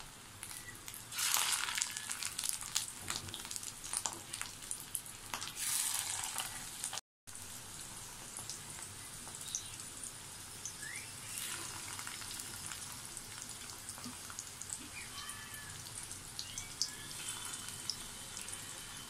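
Fish-roe fritter batter sizzling as it deep-fries in hot mustard and refined oil in a kadai. The sizzle flares louder about one and six seconds in as fresh spoonfuls go into the oil, then settles to a steady crackle, cut off briefly once about seven seconds in.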